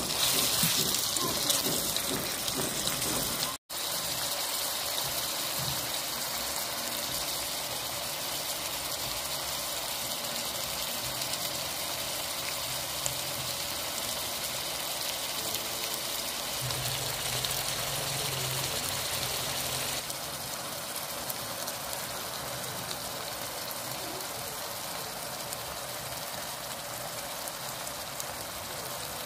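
Chopped onions and tomatoes sizzling steadily in hot oil in a metal pot, a little louder at first while a spoon stirs them. The sound cuts out for an instant about four seconds in.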